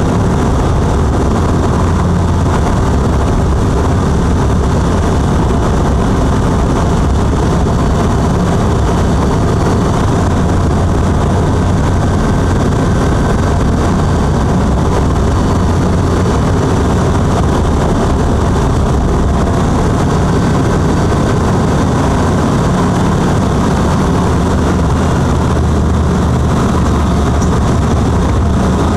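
Single-engine light aircraft's engine and propeller running steadily in flight, a loud, even drone heard from inside the cockpit.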